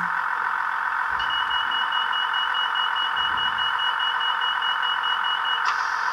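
Class 158 DMU door-opening sequence played by a model train's sound decoder through its small on-board speaker: rapid high beeps, about five a second, of the door warning over the steady idling diesel engine, giving way near the end to a hiss as the doors open.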